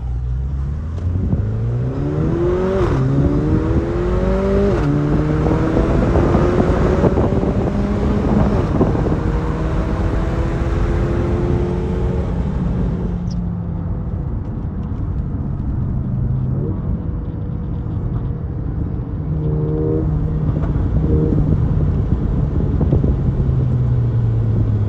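Car engine heard from inside the cabin, accelerating hard: its pitch climbs and drops back at two quick upshifts in the first five seconds, then holds and eases off to a steady cruise.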